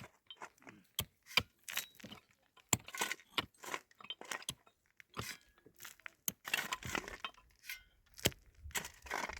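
A rapid, irregular series of sharp clicks, clinks and crunches, as of small hard objects being handled.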